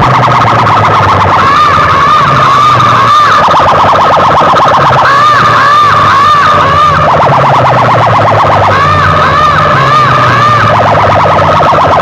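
Loud siren-style warbling effect played through a competition DJ sound system. Quick rising-and-falling wails alternate every couple of seconds with a harsh buzzing tone, over a steady deep bass drone.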